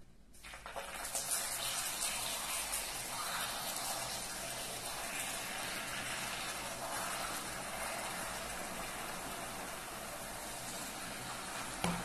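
Hot water poured into molten sugar caramel in a pan, hissing and bubbling as it hits the hot syrup, then boiling on steadily as the caramel dissolves. A short knock near the end.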